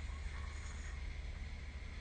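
Steady low rumble and hiss of background room noise in a phone snoring recording, with no distinct snore or breath rising and falling.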